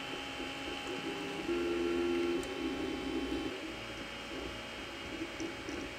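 Lotmaxx Shark V2 3D printer printing: its stepper motors whir in shifting tones as the print head moves, holding one steady note for under a second about a second and a half in. Its fans give a steady whine underneath.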